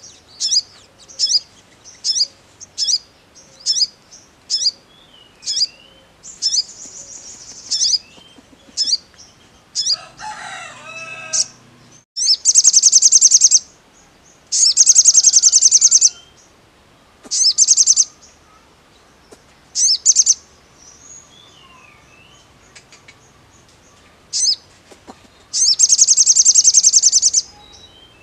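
Male olive-backed sunbird (sogon) singing: sharp, high chips about twice a second, then loud, rapid high-pitched trills lasting a second or two, repeated several times.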